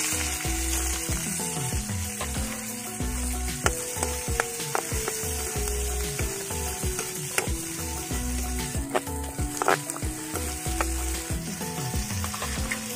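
Vegetables sizzling as they stir-fry in a steel wok, with a metal ladle clinking and scraping against the pan.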